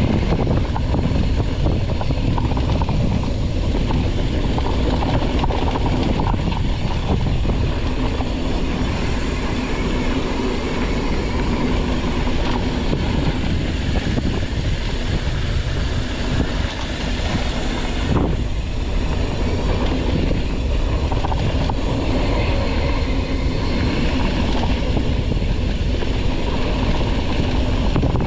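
Mountain bike descending a rough dirt trail: steady wind rush on the microphone over constant rattling and clattering of the bike over the rough ground.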